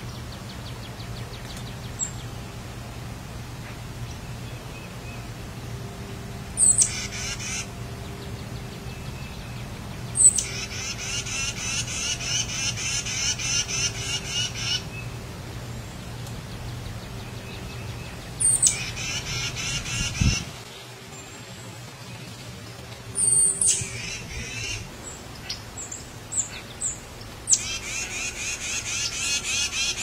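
Tufted titmouse calling in repeated bouts. Each bout opens with a thin high note and runs into a rapid series of raspy notes, about four a second. The longest bout lasts about four seconds.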